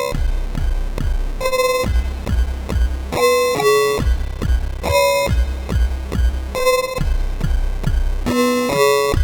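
Dreadbox Typhon synthesizer playing a factory preset: a repeating sequenced pattern with a pulsing low bass and short, bright higher notes that recur every second or so.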